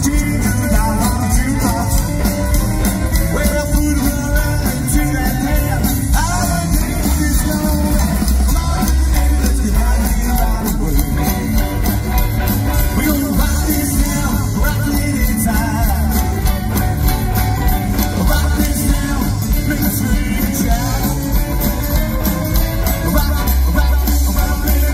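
Live rockabilly band playing a rock and roll number: upright double bass, electric guitar and drums, with a lead vocal.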